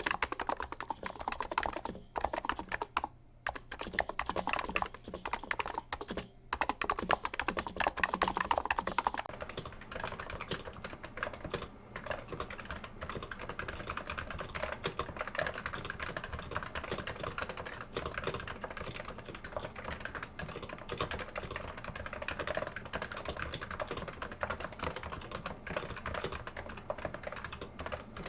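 Continuous typing on a Niz 55g electrostatic capacitive keyboard, with a slightly scratchy keystroke sound and brief pauses. About nine seconds in it changes to typing on a silenced Topre 55g keyboard, heard through a camera's built-in microphone with a steady low hum underneath.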